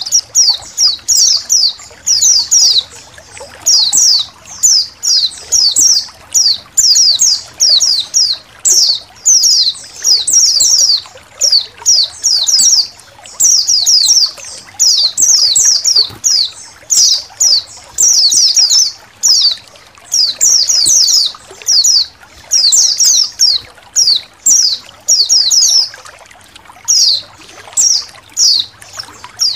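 A flock of white-eyes (pleci) chirping without pause in quick clusters of high, downward-slurred notes, over a soft trickle of water.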